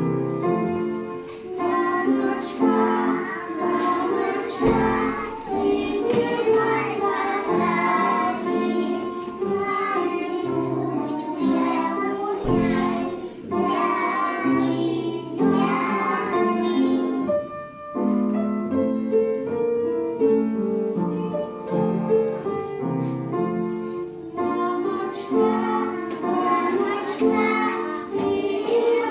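A group of young children singing a song together to musical accompaniment.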